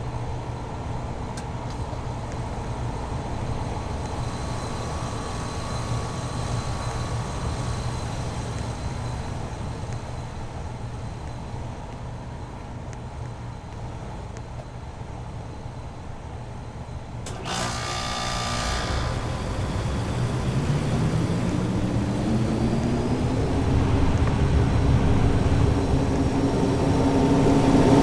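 LG Multi V 5 VRF air-conditioning outdoor unit running with a steady hum. About two-thirds of the way through there is a short burst of noise, then a tone rises in pitch over a few seconds as the unit speeds up. It levels off and grows louder near the end.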